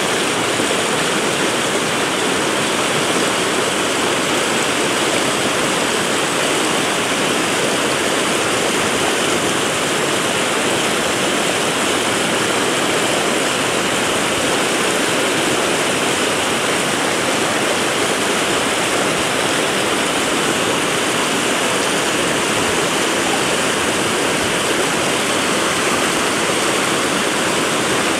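Fast mountain river rushing over rocks in rapids: a loud, steady roar of white water.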